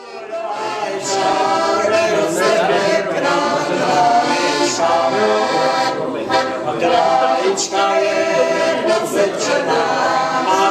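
A group of people singing a song together, with an accordion playing along; the sound fades in at the start.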